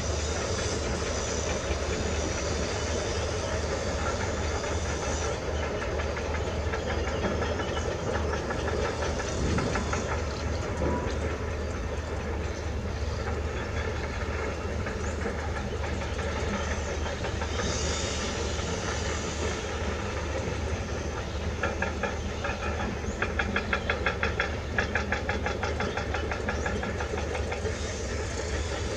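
Kubota M9540 tractor's four-cylinder diesel engine running steadily under load while working soil, with a constant low throb. A run of rapid clattering comes in about three-quarters of the way through.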